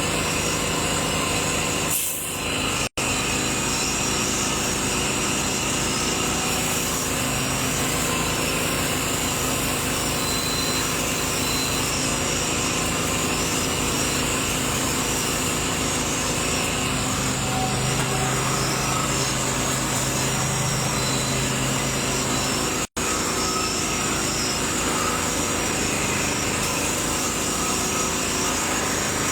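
A small engine running steadily without change in speed, broken off by two brief gaps about 3 and 23 seconds in.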